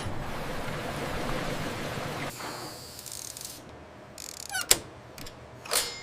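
Machinery noise: a steady mechanical clatter that dies down after about two seconds, followed by a few sharp clicks.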